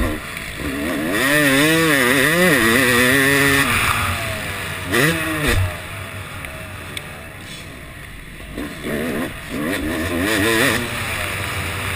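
Yamaha YZ250 single-cylinder two-stroke motocross engine revving up and down in quick swings as the throttle is worked on the track, heard from on the bike. The revs are loudest from about a second in to nearly four seconds, with shorter bursts of throttle later on.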